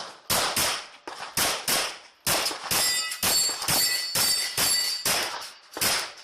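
Rapid 9mm pistol fire from a Glock 34, about two to three shots a second, with steel targets clanging and ringing from the hits through the second half.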